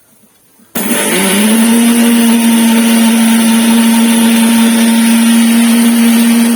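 Electric mixer grinder (mixie) grinding sugar into powder. The motor switches on suddenly about a second in, spins up in pitch, then runs at a steady hum with loud rattling hiss from the sugar in the jar.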